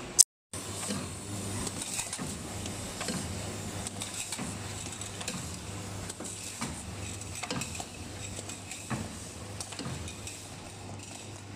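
Automatic coffee-bean filling and capping machine running: a steady motor hum with many irregular light clicks and clatter from the conveyor and capping mechanism. A sharp click and a brief dropout come just after the start.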